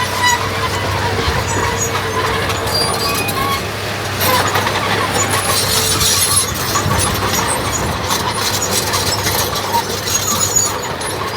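Diesel engine of heavy earthmoving machinery running steadily, with many short high-pitched squeaks over it, busiest in the middle.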